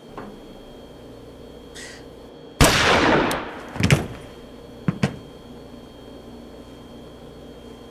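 A revolver being handled: a faint click, then a sudden loud burst about two and a half seconds in that dies away over about a second, followed by a few sharp metallic clanks, the last two close together.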